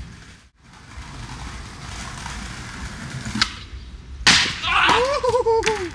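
Skateboard ollie: a small pop of the board's tail, then, about four seconds in, a loud crack as the board and skater come down on concrete. A drawn-out man's yell follows.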